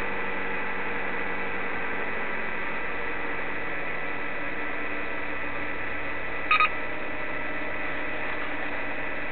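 Honda Civic engine idling steadily just after being started. A short double beep sounds about six and a half seconds in.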